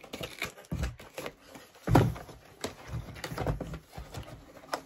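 Cardboard packaging being handled and opened by hand, with irregular rustles, scrapes and knocks and a louder thump about two seconds in.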